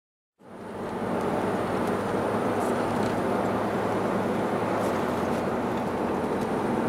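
Silent for about half a second, then the steady road and engine noise of a moving car, heard from inside the cabin, fades in and holds at an even level.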